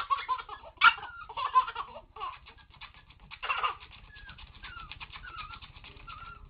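A baby laughing in loud bursts over the first few seconds, with another burst about three and a half seconds in, then fainter wavering high squeals.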